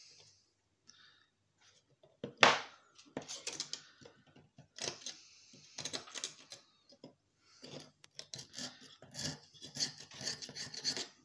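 Hand-breaking a small glass digital display from a DVD player's front-panel board: one sharp crack about two and a half seconds in, then irregular clicking, scraping and rubbing of glass and plastic pieces.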